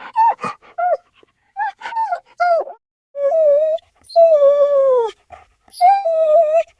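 Dog whining: a run of short whimpers, then longer drawn-out whines, one of which sags lower in pitch as it ends about five seconds in.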